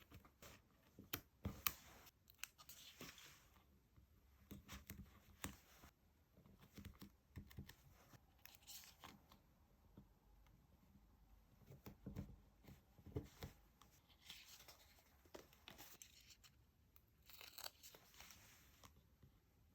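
Faint stickers and paper being peeled and handled: a few drawn-out tearing swishes, one near the start and two near the end, among light taps and clicks.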